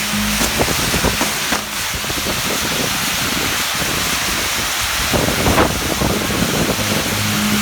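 Maltese fireworks wheel spinning: a steady, loud hiss of burning fountain drivers with dense crackling, and a stronger burst about five and a half seconds in.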